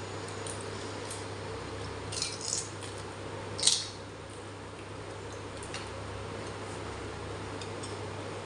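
Fuchka (pani puri) shells being cracked and crunched while eating: a few short crisp crackles, the loudest a little past the middle, over a steady low hum.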